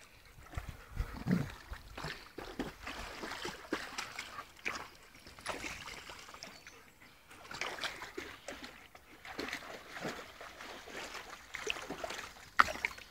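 Old English Sheepdogs and an Akita wading and lying down in a shallow stream: irregular splashing and sloshing of water around their legs and bodies, the sharpest splash near the end.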